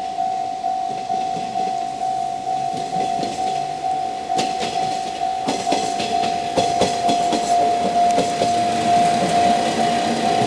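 Japanese level crossing warning bell ringing, a steady repeating ding. From about four seconds in, the wheels of a JR Shikoku 1500 series diesel railcar click and clack over the crossing and rail joints as it passes slowly.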